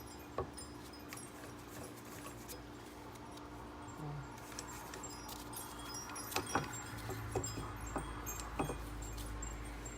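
Scattered light metallic clicks and taps of hand tools and drive-shaft parts being handled, a few at a time, over a steady faint hum.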